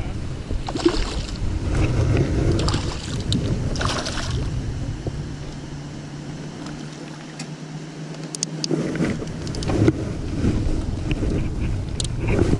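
A hooked largemouth bass splashes at the surface as it is reeled in, then knocks and rattles follow as it is swung aboard and lands on the deck of a small plastic fishing boat, over wind rumbling on the microphone. A steady low hum stops about nine seconds in.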